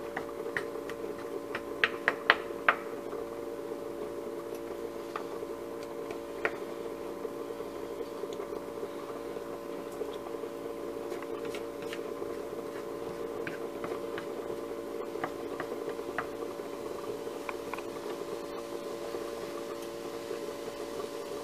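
A wooden spoon stirring dry minced ham in a nonstick frying pan. It makes soft scraping with a few light clicks against the pan, most of them together about two seconds in, over a steady hum.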